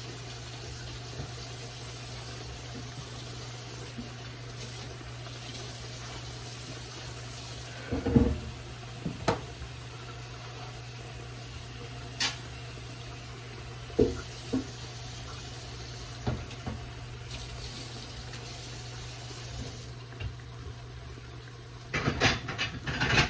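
Oyster mushrooms deep-frying in hot oil: a steady sizzle, broken by a few sharp knocks of a utensil against the pan, with a cluster of clattering near the end.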